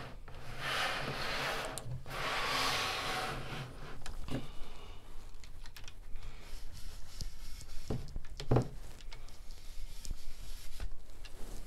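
Hands handling a plastic LEGO model and the camera: two soft rubbing rushes, then scattered light clicks and taps, a few of them louder knocks.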